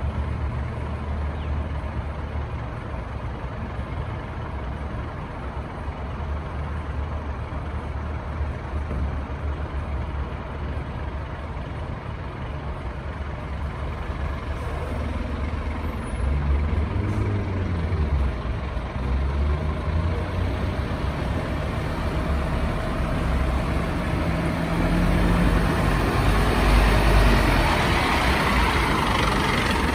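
Scania fire engine's diesel engine idling low and steady, then pulling away, its note rising and falling through the gears about halfway through. It grows louder near the end as the truck drives past close by.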